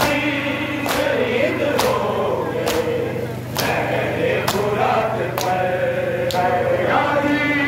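A group of men chanting a noha in chorus, kept in time by sharp matam strikes, hands beating on chests, a little under once a second.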